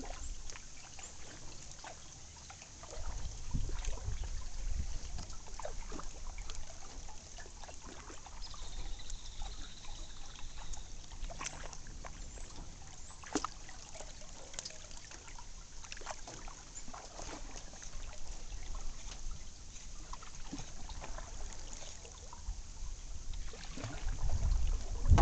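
Water trickling and dripping off a canoe paddle, with small splashes as it dips into calm river water.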